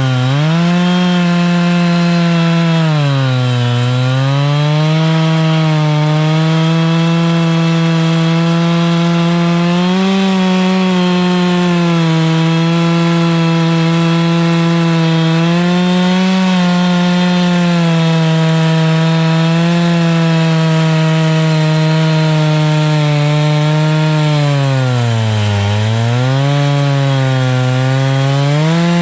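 Chainsaw on an Alaskan chainsaw mill ripping a log lengthwise at high revs, running steadily; its pitch sags briefly twice, about three seconds in and again about four seconds before the end, as the engine bogs under the load of the cut.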